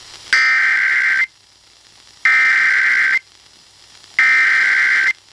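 Emergency Alert System SAME header: three bursts of two-tone digital data, each just under a second long and about a second apart. It is the coded header that opens an alert, here a tornado warning.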